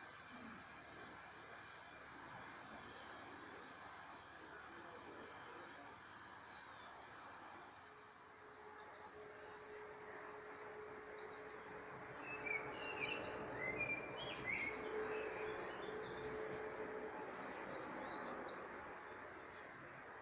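Outdoor insect and bird ambience: a steady high insect trill runs throughout, with short sharp chirps about once a second in the first half. Past the middle, a few quick bird chirps come in and the sound gets a little louder.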